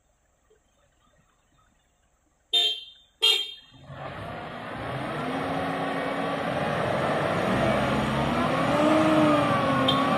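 Two short car-horn toots, then a 4x4's engine revving hard under load, its pitch rising and falling, with a dense rushing noise of wheels churning in deep mud as it tries to pull free. Another short toot comes near the end.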